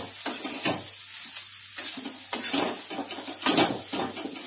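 A metal spatula stirring and scraping mashed potato around a hot metal kadhai in repeated strokes, over the steady sizzle of the potato and spices frying in oil.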